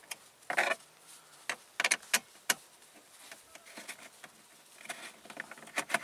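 A small screwdriver prying and scraping at the plastic dashboard trim around the instrument cluster to release a clip. A handful of sharp plastic clicks comes in the first two and a half seconds, with fainter ticking and scratching after.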